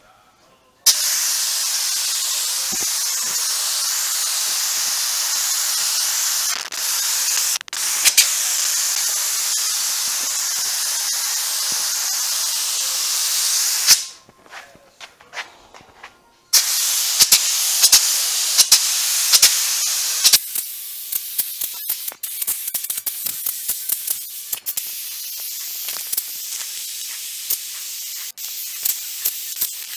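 Compressed-air gravity-feed paint spray gun hissing in long steady passes as it lays a first coat of paint on a plastic truck bumper. It breaks off about halfway through for a couple of seconds, starts again, then goes on as a fainter hiss with scattered small clicks.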